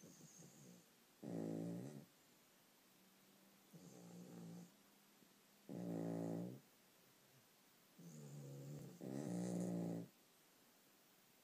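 Dogs snoring loud, in a repeating cycle about every four seconds: a quieter, rougher snore, then a louder, pitched snore, three times over.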